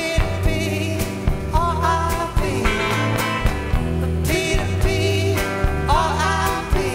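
Live rock band playing: a man's voice singing sliding, held notes over electric guitar, bass and a steady drumbeat.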